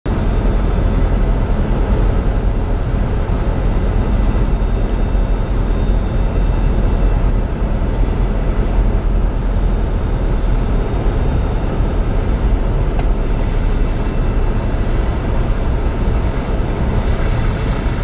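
Cessna 172 single-engine piston airplane's engine and propeller running steadily with air rushing past on final approach, heard from inside the cabin.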